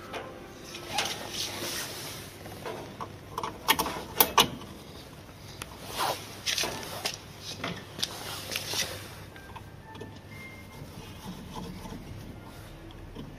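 Sharp clicks, knocks and scrapes of a D-sub serial cable connector being fitted into a COM port on a sheet-metal back panel and fastened, the loudest clicks about four seconds in and another cluster a little later.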